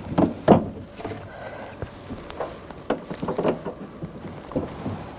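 Irregular clicks and knocks of hand tools and parts inside a car door as pliers squeeze a plastic ball-and-socket clip onto its ball stud on the door handle linkage.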